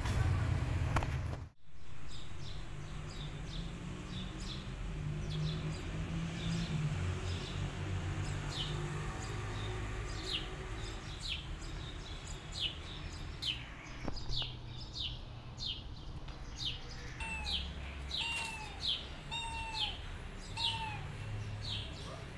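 Small birds chirping repeatedly: short, high, downward-sliding chirps several times a second, busier in the second half, over a steady low background rumble.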